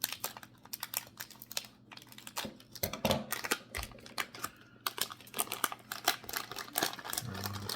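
Packaging of a blind-bag mystery pack crinkling and crackling as it is opened by hand: a run of sharp crackles that gets denser in the second half.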